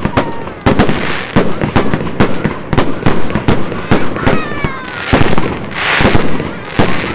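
Fireworks going off in quick succession: many sharp bangs and crackles, with bursts of hissing and a few falling whistles about four seconds in.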